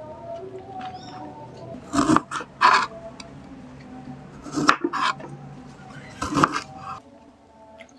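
A kitchen knife cutting through a small citrus fruit onto a wooden chopping board, giving several short, sharp cuts and knocks in clusters of two or three.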